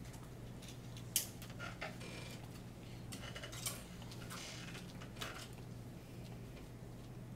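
A lull in a wind band's playing: scattered small clicks, clinks and rustles as players handle their instruments and stands, over a steady low hum.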